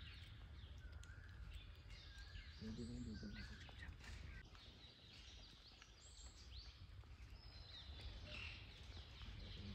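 Faint birdsong: many small birds chirping and calling in short notes, over a low steady background rumble.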